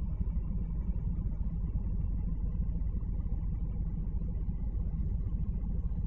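Steady low rumble of a car, heard from inside the cabin.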